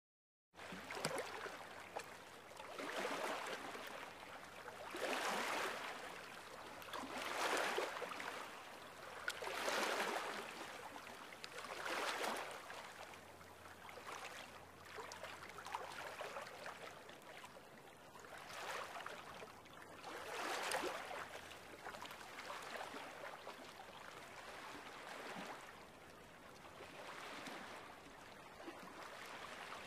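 Water washing in slow swells, like small waves lapping, with a surge every two seconds or so. The surges are strongest in the first half and gentler later.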